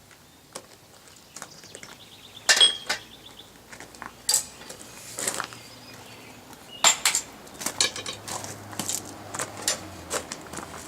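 Hammer blows on a steel touch-mark stamp set on hot iron, a few separate hard, ringing strikes several seconds apart among lighter clinks of steel tools on metal.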